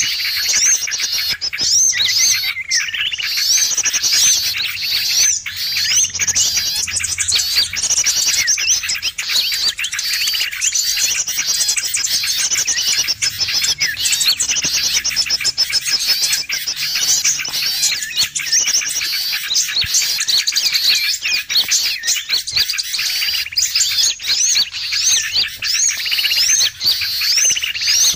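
Busy chorus of many small songbirds: rapid high chirps and trills overlapping without a break. It is a bird-trapping lure call (suara pikat) meant to draw wild birds in.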